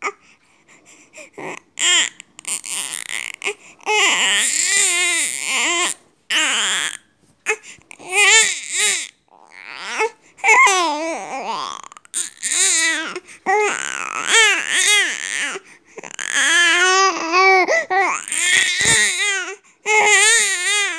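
Five-month-old baby crying in repeated wavering cries, each a second or two long, with short pauses between them.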